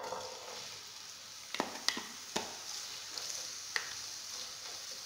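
Sliced white onions sizzling steadily as they hit hot cooking oil in a granite-coated pot. Several sharp knocks come from the wooden spoon and bowl against the pot as the onions are tipped in and stirred.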